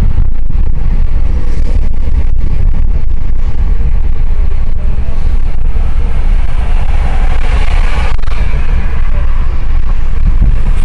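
Loud, continuous wind buffeting on the microphone of a moving car, with tyre and road noise underneath.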